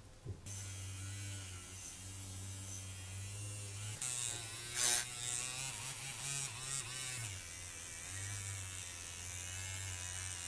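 Small handheld electric motor tool buzzing steadily, its pitch wavering and its load changing around the middle, with a louder moment about five seconds in.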